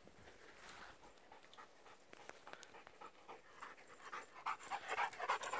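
A dog panting fast, getting louder over the last second or two as it runs up close.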